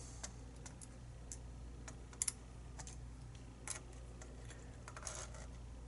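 Scattered light clicks and taps of small metal lock parts, the plug and pins, being handled and set down, with a sharper double click about two seconds in.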